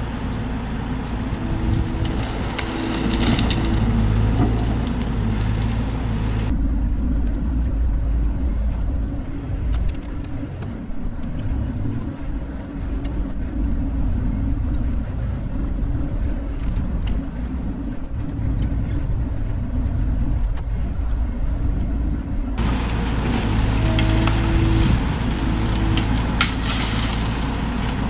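Bobcat E42 mini excavator's diesel engine running steadily under working load, a continuous low drone. A higher tone comes and goes a few times near the start and again near the end.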